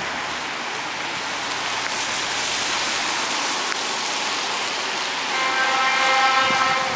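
Steady hiss of rain and wind. About five seconds in, the horn of the class 754 diesel locomotive 754 026 sounds in the distance, one steady note held for about a second and a half as the train approaches.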